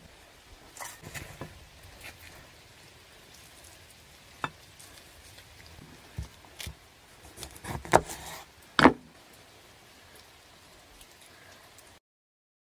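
Scattered light clicks and knocks of food and utensils being handled on a wooden cutting board during salad preparation, with a few louder knocks about eight to nine seconds in. The sound drops out completely just before the end.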